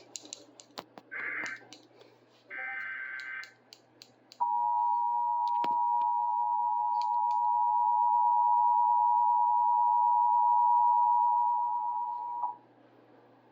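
Emergency Alert System AMBER Alert tones: two short bursts of SAME header data in the first few seconds, then the two-tone attention signal (853 and 960 Hz together), a steady tone held about eight seconds that cuts off sharply. Scattered computer keyboard clicks before the tone.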